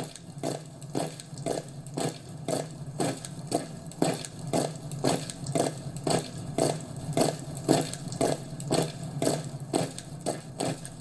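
Regular crunching beats, about two a second, over a steady low hum.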